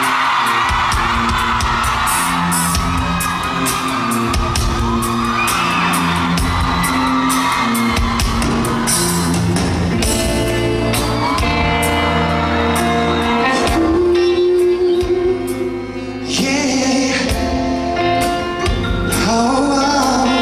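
Live pop concert music with a steady drum beat and sustained instrument notes, with fans screaming over it, mostly in the first half.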